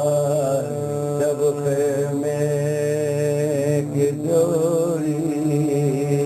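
Men's voices chanting a soz, an Urdu mourning elegy sung without instruments: long held notes with a slowly wavering, ornamented melody.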